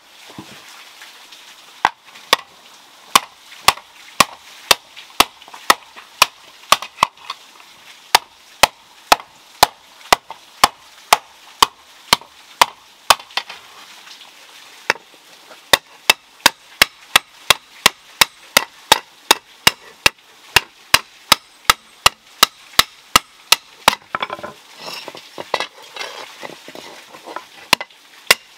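Hand hammer forging a red-hot iron pan blank on a stump anvil: a steady run of sharp hammer blows, about two a second. The blows break off briefly about three-quarters of the way through, with softer shuffling noise, then resume.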